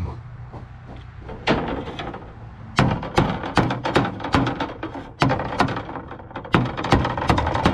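Rebar being tapped into an epoxy-filled hole drilled in the existing wall: a single knock, then from about three seconds in a run of sharp knocks about two or three a second, driving the 20-foot stick until it bottoms out.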